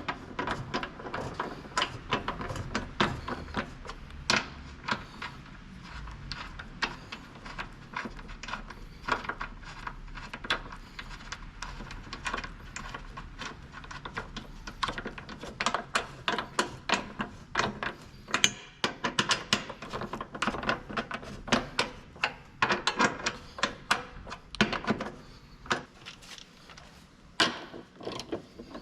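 Hand tools working on metal: a steady run of irregular clicks and knocks, with the rapid clicking of a socket ratchet wrench.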